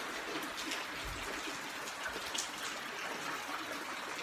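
Steady light rain falling, with scattered single drops tapping close by.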